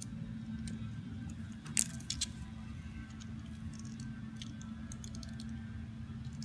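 Folded paper leaflet being handled and unfolded: scattered light crinkles and clicks, the loudest cluster about two seconds in, over a steady low hum.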